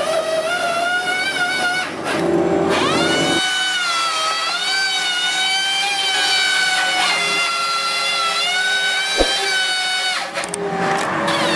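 Firewood processor running and cutting logs: a steady machine whine from its saw drive that wavers in pitch as it works, rising about three seconds in, with a sharp click near the end.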